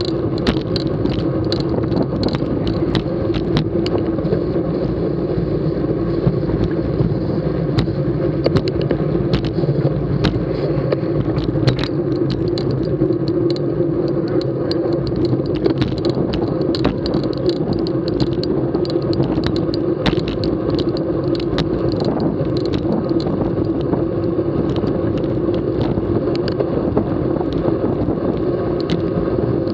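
Riding noise from a camera mounted on a racing bicycle in a moving bunch: a steady rush of wind and tyres on the road with a constant hum and frequent small clicks and rattles.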